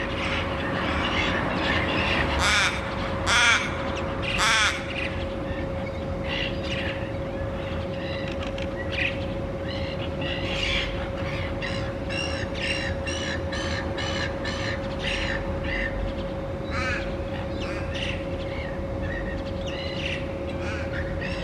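Little ravens cawing: three loud caws in the first five seconds, then scattered calls and a fast, even run of short caws, about two a second, past the halfway point. A steady hum runs underneath.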